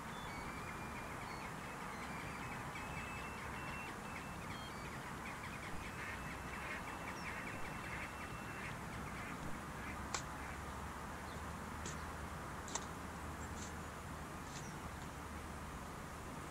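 Electronic beeping from a Deben Mk3 ferret locator receiver as it is swept over the warren to find the ferret's collar underground: rapid beeps that step up in pitch, then hold one steady tone for a couple of seconds before stopping about halfway through.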